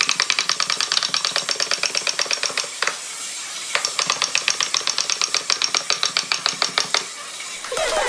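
Rapid, even ratchet clicking at about eight clicks a second. It comes in two runs with a short break about three seconds in, and stops near the end.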